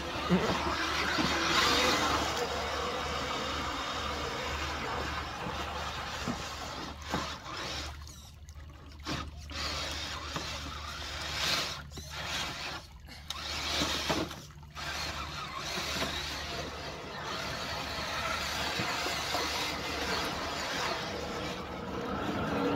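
Scale RC crawler trucks wading through deep creek water: steady splashing and churning from the wheels, with the whine of their electric motors and gears. The sound drops out briefly a few times in the middle.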